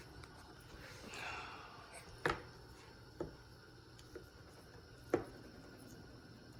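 Kitchen knife chopping on a cutting board: four separate sharp chops about a second apart, the first and last loudest.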